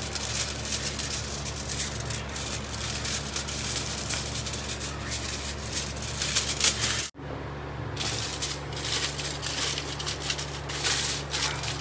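Aluminium foil crinkling and rustling as it is crimped around the rim of a cooking pot to seal it for dum cooking, a dense irregular crackle over a steady low hum. The sound drops out briefly about seven seconds in, then carries on.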